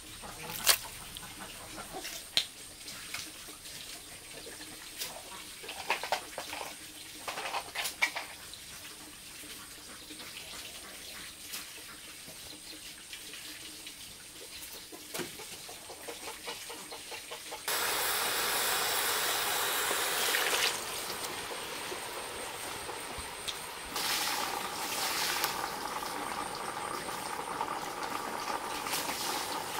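Water running or pouring in a steady rush that starts abruptly about two-thirds of the way in, stops after about three seconds, then starts again and runs on, with scattered knocks and clatter in the quieter stretch before it.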